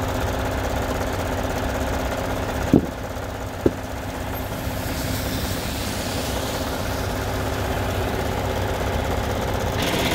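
International semi truck's diesel engine idling steadily, with two brief sharp knocks about three and four seconds in.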